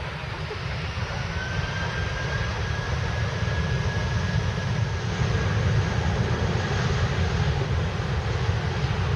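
Airbus A320-232 airliner's IAE V2500 jet engines at takeoff power during the takeoff roll, a low rumble growing louder over the first few seconds. A steady high-pitched whine runs through the middle of it.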